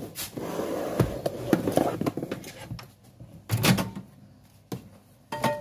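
Kitchen clatter: forks scraping and tapping in a plastic mixing jug and dishes being handled, with a few sharp knocks and a louder thud about three and a half seconds in.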